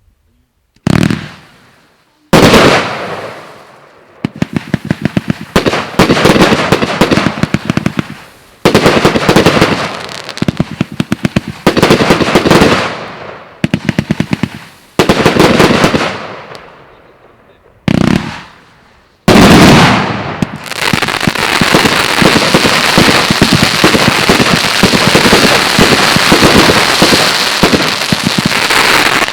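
Hallmark Fireworks 'Relentless' compound firework firing rapid volleys of very loud shots. The shots come in runs of a few seconds, each fading off before the next begins, then fire almost without a break from about two-thirds of the way in.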